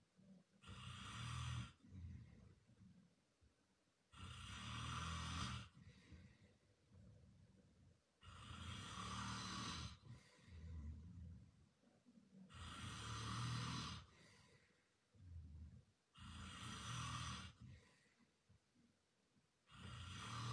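A man snoring in his sleep, one snore about every four seconds, with softer breathing between.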